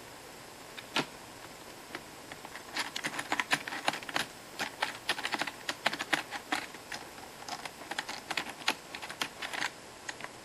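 Computer keyboard keys clicking under a cat's paws: one click about a second in, then an irregular clatter of key presses that stops shortly before the end.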